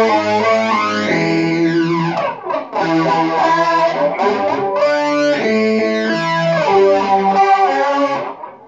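Electric guitar played through effects pedals: sustained chords with a sweeping effect that rises and falls twice, dying away near the end.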